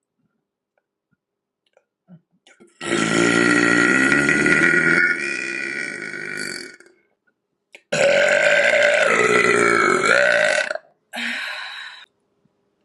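A woman burping loudly three times: two long, drawn-out burps of about four and three seconds, then a short one near the end.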